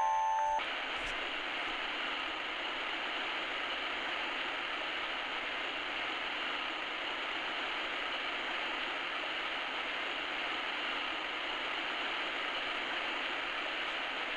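Waterfall sound from a Soothing Sounds 20 clock radio, played through its small built-in speaker: a steady, muffled rushing noise with no top end, a low-quality sample. The last ringing wind-chime tones stop about half a second in, as it switches to the waterfall.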